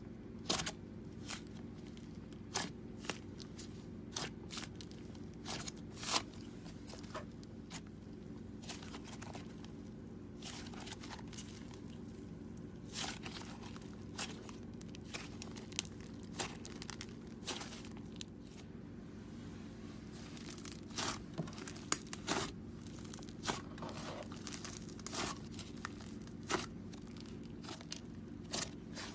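Slime being squished, poked and stretched by hand, giving irregular sticky clicks and pops, over a steady low hum.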